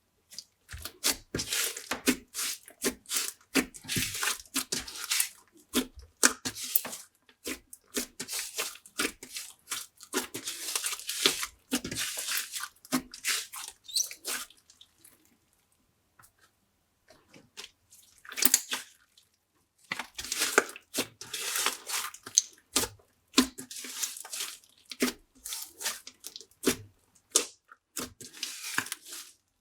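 Glossy slime being worked by hand: irregular wet squelches, clicks and little pops, with a pause of about two seconds just past the middle.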